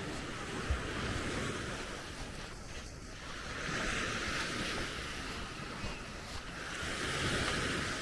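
Sea waves washing onto the shore, swelling about halfway through and again near the end, with wind rumbling on the microphone.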